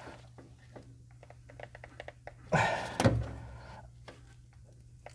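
Locking pliers clamped on a seized hydraulic line nut being strained against: small clicks and knocks of the tool on the metal fitting, with two short grunts of effort about two and a half and three seconds in. The nut does not give.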